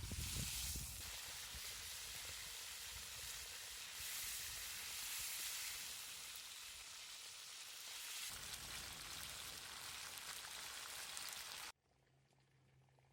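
Food sizzling in a hot pan over a campfire, a steady frying hiss that cuts off suddenly near the end.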